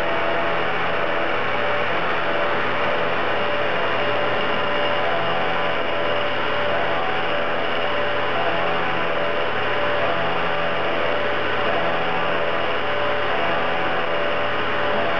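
Elrod Route 66 Taskmaster CNC knee mill cutting with an end mill in its auxiliary high-speed spindle under flood coolant: a steady hum and hiss, with a few tones that switch on and off every second or two as the cut moves along its toolpath. The spindle is turning below its full 15,000 rpm while the high-speed toolpaths are checked.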